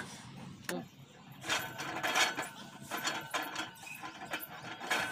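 Metal outdoor gym machines, a seated rower and then shoulder-rotation wheels, rattling and squeaking at their pivots as they are worked. There is a single click under a second in, then a quick, uneven run of rattling, squeaky strokes from about a second and a half in.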